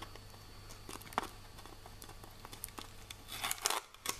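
Masking tape being peeled off a vacuum-formed plastic case and crumpled, a faint crinkling and tearing with a sharp tick about a second in and louder rustles near the end, over a steady low hum.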